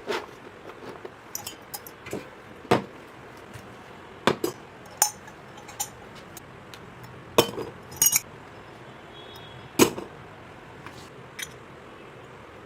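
Small plastic toy kitchen pieces being handled and set down: about a dozen separate, irregular clicks and light clinks at uneven intervals.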